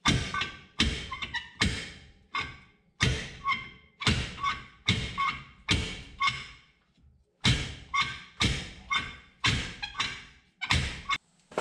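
Cast-iron brake drum, bolted inside out on the axle shaft, yanked outward over and over as a makeshift slide hammer: a string of hard metal clanks, about two a second at uneven spacing, each ringing briefly. The stuck axle shaft does not come out.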